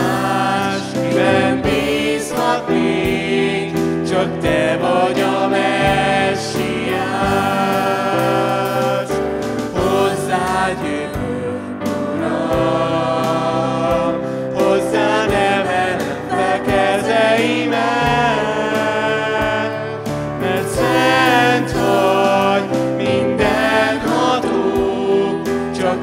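Worship band playing a Hungarian worship song: women's and a man's voices singing in harmony over keyboard chords, with a steady low beat.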